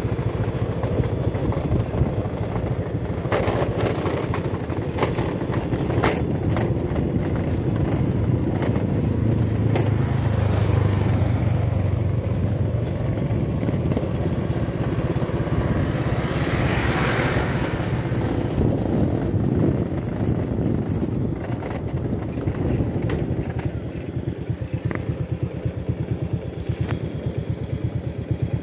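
Small motorcycle engine running as the bike rides along a rough concrete lane, with wind rush over it and a few sharp knocks from bumps early on. A louder rush of noise swells around the middle, and near the end the engine settles to an even, slower putter.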